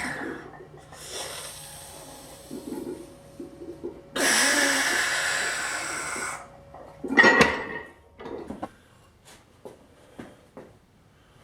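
Hard, hissing exhalations of a man straining through forearm-lifting reps: a shorter breath, then a long one of about two seconds. A sharp knock comes about halfway through, followed by a few light clicks.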